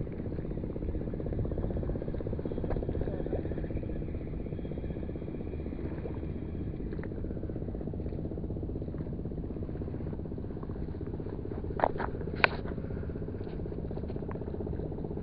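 Small spinning reel being cranked to wind in a hooked fish, over a steady low rumble. Two sharp clicks about twelve seconds in.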